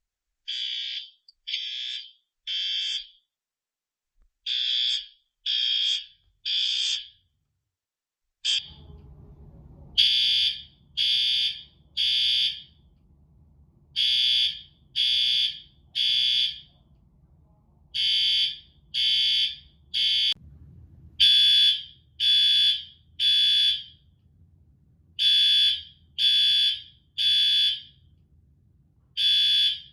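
Commercial fire alarm system's horns sounding in alarm, a high-pitched tone pulsing in groups of three with a longer pause between groups: the temporal-three evacuation pattern. The pulses pause briefly, and a click comes about eight and a half seconds in before the pattern resumes.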